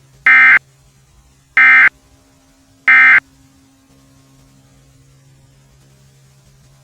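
Emergency Alert System End of Message code: three short identical data bursts about 1.3 seconds apart, marking the end of the alert. A faint steady hum sits underneath.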